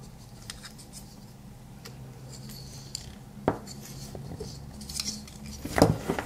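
Handling noise from a small electronics assembly, a watt meter's LCD circuit board and its aluminium case parts being turned over in the hands: scattered light clicks, one sharp click about halfway through and a few louder knocks near the end, over a faint steady hum.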